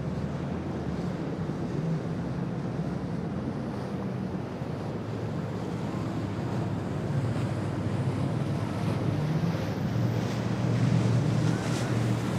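Single Yamaha outboard motor on a center-console boat running under way, its low steady hum mixed with water rushing off the hull and wake and with wind on the microphone. The engine hum grows louder near the end as the boat comes closer.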